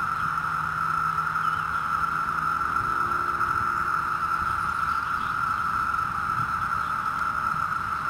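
Steady shrill chorus of countless 17-year periodical cicadas (the northern Illinois brood, Brood XIII) singing together, an unbroken high drone that does not rise or fall.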